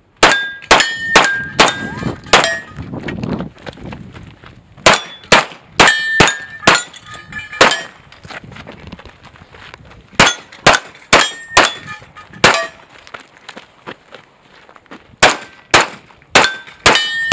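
Pistol shots fired in quick strings of about five, with a pause of a couple of seconds between strings. Steel target plates ring with a short metallic clang as the hits land.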